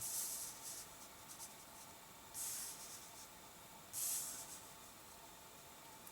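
Magic: The Gathering trading cards being slid and shuffled against each other by hand, three brief papery swishes.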